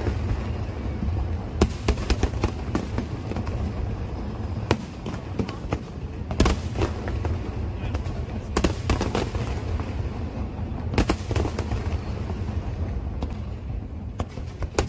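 Fireworks display: sharp bangs and crackles in clusters every couple of seconds, over a steady low rumble.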